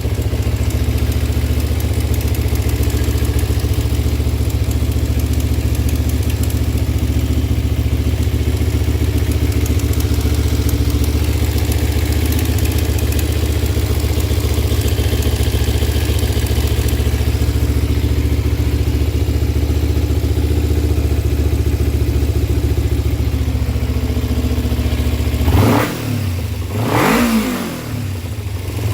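Kawasaki Ninja 250 parallel-twin engine idling steadily, with the ticking its owner is asking about. Near the end it is revved up and let fall back twice.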